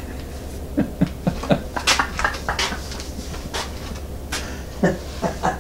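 A man chuckling in a few short bursts, then several short knocks and rustles as he moves about. A steady low hum runs underneath.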